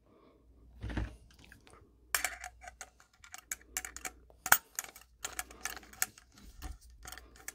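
A screwdriver working the cable-clamp screw of a steel electrical box, tightening the clamp onto the cable sheathing: irregular light metal clicks and ticks of tool on screw and box. A soft thump about a second in.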